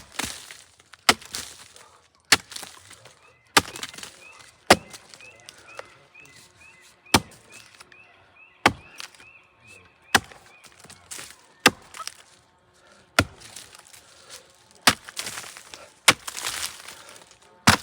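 Axe chopping into the soggy, rotten trunk of a fir tree: about fourteen sharp strikes, evenly paced at roughly one every second and a half.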